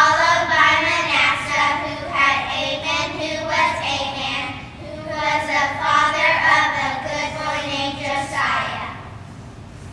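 A group of young children singing together in two phrases, with a short dip about halfway, the singing falling away near the end.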